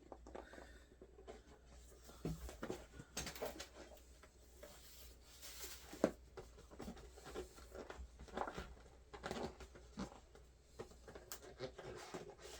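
Packaging of a boxed collectible figure being handled: light taps, scrapes and rustles, with a sharper click about six seconds in.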